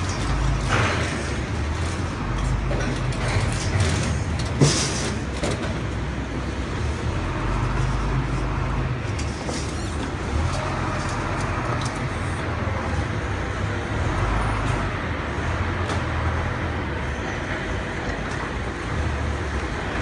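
Steady low rumble of machinery in a working industrial hall, with scattered knocks and a sharp clank about four and a half seconds in.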